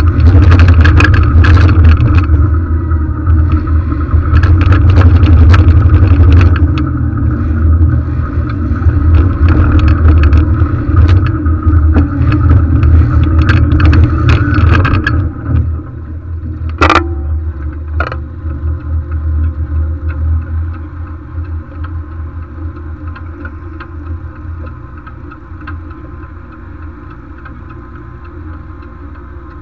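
Military armoured vehicle's engine running loudly as it drives, with much rattling and clattering from the vehicle. About halfway through the engine note drops as it slows to a quieter idle, and there are two sharp knocks soon after.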